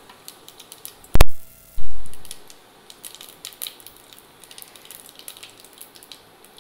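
Cumin seeds crackling in hot oil in a pressure cooker, a fast scatter of small pops. About a second in there is one loud sharp click, then a dull thump.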